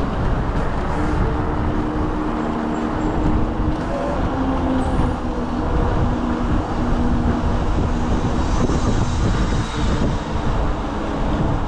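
Wind rushing over the microphone and tyre rumble from an electric scooter riding along a street, with a faint steady hum under it.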